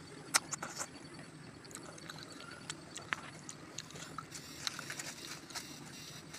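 Close-up eating sounds of someone eating curry and rice with the hand: wet lip-smacking and chewing clicks, one sharp smack about a third of a second in and lighter ones scattered throughout, over a steady low background noise.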